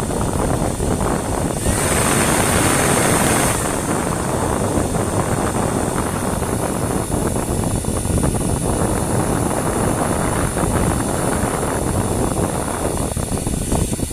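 Xiaomi Mi ionic hair dryer running, a steady rush of blown air with a high motor whine; it grows louder for about two seconds near the start, then settles back.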